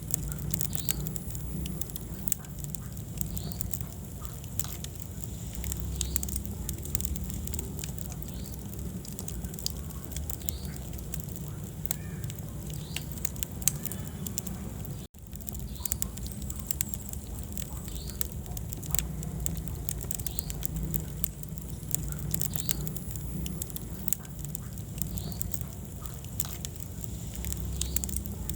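Wood fire in a fireplace burning, with a constant low rumble of the flames under frequent sharp crackles and pops of the burning logs. The sound cuts out for an instant about halfway through.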